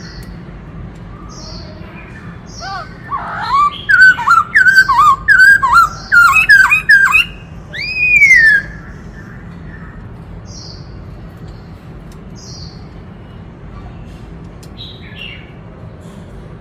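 Black-throated laughingthrush singing: a loud run of quick, rich whistled notes that ends in a long down-slurred whistle, with soft high chirps repeating about once a second before and after.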